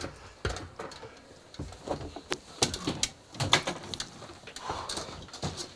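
Irregular knocks, scuffs and bumps of a person clambering down through a narrow hatch among the metal frames inside a flying boat's hull.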